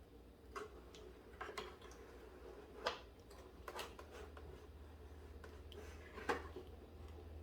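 Scattered light clicks and taps, about half a dozen sharp ones, over a low steady hum.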